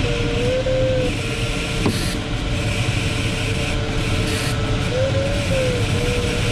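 Steady airflow rush in a sailplane cockpit, with a continuous electronic variometer tone that holds level and then wavers gently up and down in pitch near the end.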